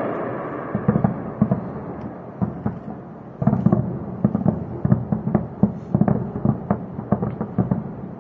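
Air-defence gunfire over a city at night. A large boom fades at the start, then many sharp cracks and pops over a continuous rumble, coming thicker from about three and a half seconds in.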